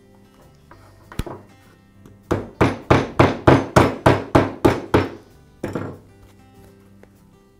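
Rubber mallet tapping the lock lever into a plastic lawn mower mulch door: one knock, then a quick run of about a dozen taps, three or four a second, and a last tap.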